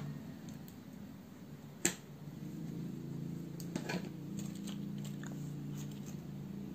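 Light clicks and taps of small objects being handled and set down on a tabletop, with one sharper click about two seconds in, over a low steady hum.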